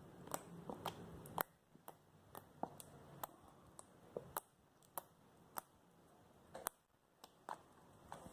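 Fluffy slime being squeezed and stretched by hand, giving off faint, irregular sharp pops and clicks.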